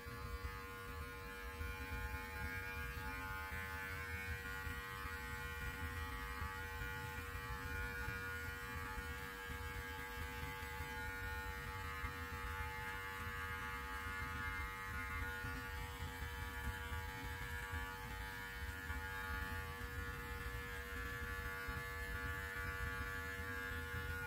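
Electric beard clippers running with a steady, even hum as they trim stray flyaway hairs from a long beard.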